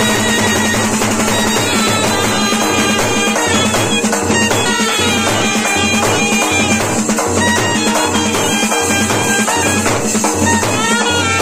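Wedding brass band playing: clarinet and trumpets carry a reedy melody over a steady, regular beat on a large drum.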